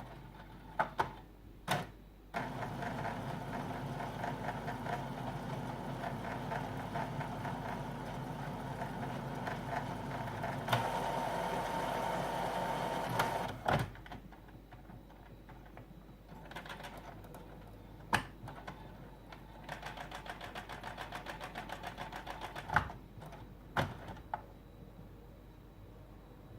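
Epson WorkForce WF-3620 inkjet printer charging ink after a cartridge change. Its mechanism runs steadily for about eleven seconds, gets louder near the end of the run, then stops suddenly. A few sharp clicks and a short stretch of rapid, even ticking follow.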